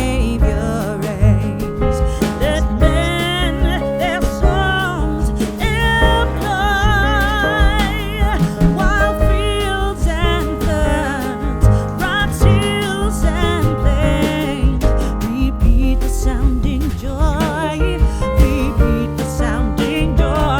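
A song with a singer's voice over an instrumental backing with a steady bass.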